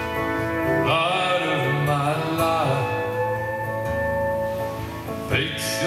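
Live country music: acoustic guitar with a pedal steel guitar playing gliding, bending notes and one long held note.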